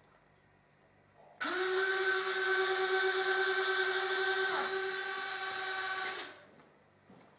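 Small electric motor of an F-104 landing-gear retraction mechanism, spinning up abruptly about one and a half seconds in, running with a steady whine for about five seconds, then winding down.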